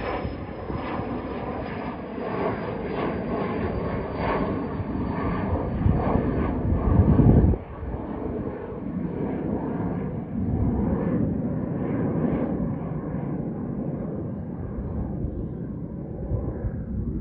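Learjet 40's twin turbofan engines climbing away after takeoff: a steady jet rumble with a faint high whine that slowly falls in pitch as the jet recedes. About six seconds in a loud low rumble swells and cuts off suddenly.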